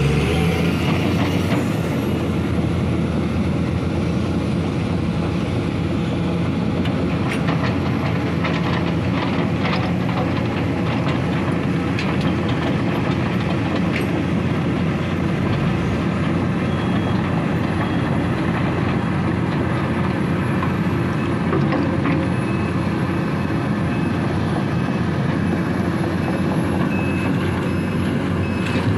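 Diesel engine of a large Sumitomo SH350 hydraulic excavator running steadily under work, with scattered metallic clanks and brief squeaks from the machine as it moves.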